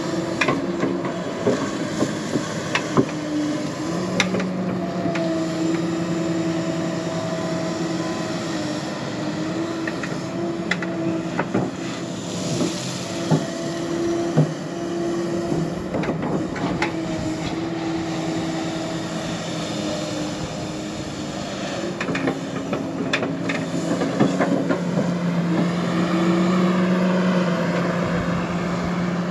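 Hydraulic excavator working: the diesel engine and hydraulics run with a steady drone whose pitch and strength shift as the load changes, with scattered sharp metallic clanks and knocks.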